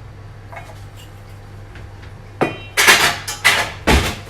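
Kitchenware being handled: a quick run of about five loud clatters and scrapes in the second half, the first with a short metallic ring, as of a baking pan being set down and moved about.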